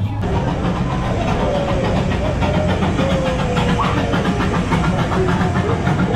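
Gasoline engine of a miniature replica 1863 Central Pacific steam locomotive idling at the station, a steady low hum.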